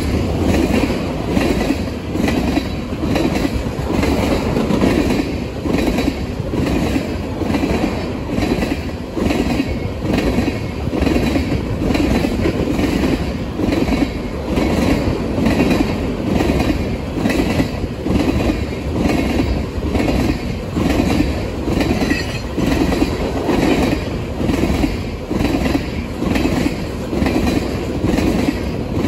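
Ethanol tank cars of a freight train rolling past close by: a steady low rumble of wheels on rail with an even, repeating clatter as the wheel sets pass.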